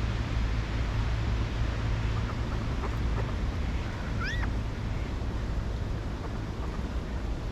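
Steady outdoor background hiss with a low rumble, over which a bird gives one short call about four seconds in that rises and arches over, with a few faint chirps around it.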